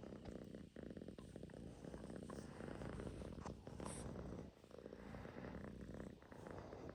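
A Russian Blue cat purring steadily, a low rumble made of fine, rapid pulses.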